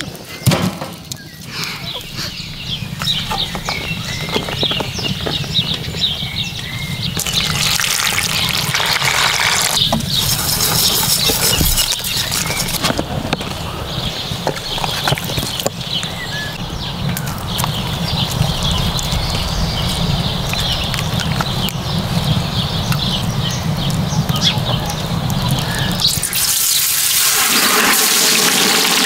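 Hens clucking and split firewood clattering as it is handled. Then, near the end, a whole chicken goes into hot oil in a cast-iron cauldron (가마솥), and the oil sizzles and bubbles loudly as it deep-fries.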